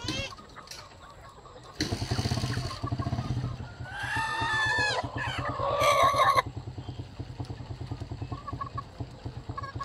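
An engine starts about two seconds in and keeps running with a steady, even low putter. A rooster crows over it once, from about four to six and a half seconds in.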